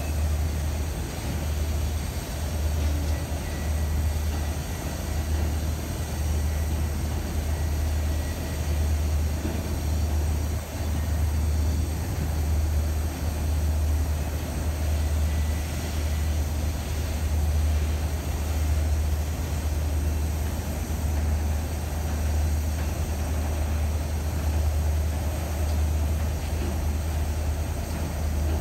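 Freight train of autorack cars rolling past close by: a steady rolling rumble of steel wheels on rail, with a deep low throb that swells and dips about once a second.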